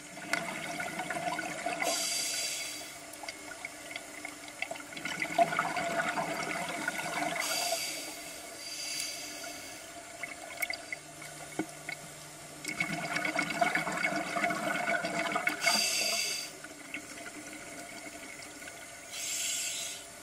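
Scuba regulator breathing heard underwater: a few seconds of gurgling exhaled bubbles, then a short hiss of inhalation through the demand valve, repeated about three times.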